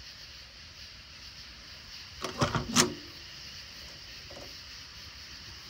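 Chevrolet C10 pickup's cab door being unlatched and swung open: a quick cluster of clunks and clicks about two and a half seconds in, the last one the loudest, over a steady faint high hiss.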